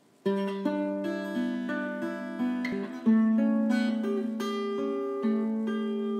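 Background music: acoustic guitar playing slow, ringing plucked notes, a new note every half second or so.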